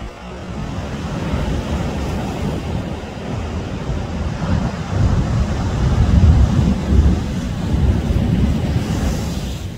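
Ocean surf breaking, a deep rumbling wash of waves with wind buffeting the microphone; it swells to its loudest a little past the middle and eases near the end.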